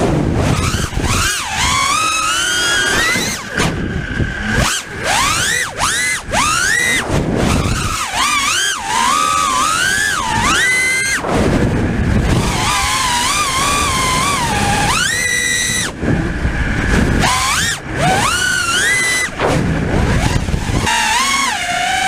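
FPV racing quadcopter's T-Motor F60 brushless motors running on 5S with 5-inch three-blade props, whining loudly. The pitch rises and falls sharply over and over as the throttle is punched and chopped.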